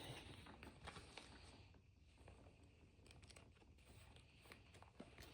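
Near silence with a few faint clicks and rustles of baseball trading cards being handled.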